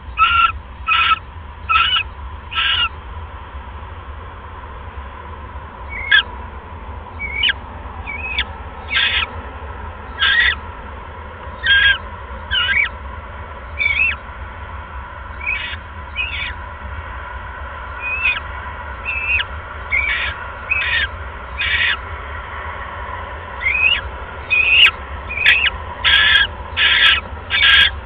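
Barn owls in a nest box calling: a string of short, rasping, hiss-like calls mixed with quick chirps, in irregular runs that come faster, about one every half second, near the end. A steady low hum runs underneath.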